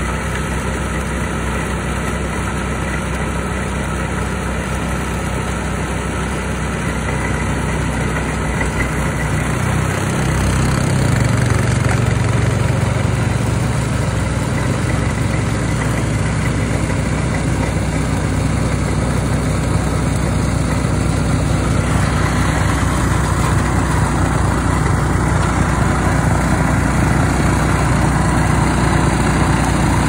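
Snowblower engine running steadily while clearing snow, getting louder about ten seconds in.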